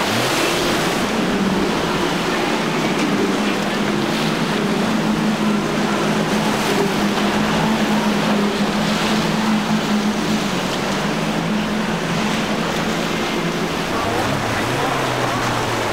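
A bank of outboard motors on a large center-console boat running at steady speed through rough inlet waves: a steady engine drone over the rush of water and breaking waves. About fourteen seconds in, a lower engine hum from another boat takes over.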